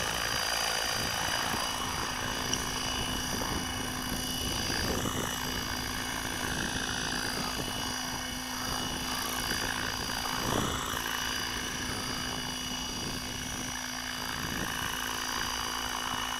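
HK600GT 600-size electric RC helicopter flying with a steady high whine from its brushless motor and gears over the rotor noise.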